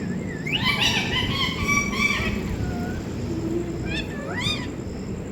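Pet parrot calling: a run of pitched, bending calls for about two seconds, then two or three short calls that sweep up and down in pitch about four seconds in.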